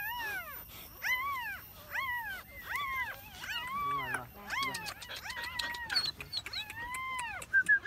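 A dog whining over and over, about ten rising-and-falling cries roughly one a second, with a few short high squeaks near the end.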